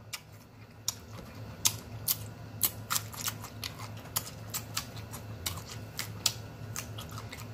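Close-miked chewing of a mouthful of sauerkraut: irregular wet smacks and clicks from the mouth, over a low steady hum.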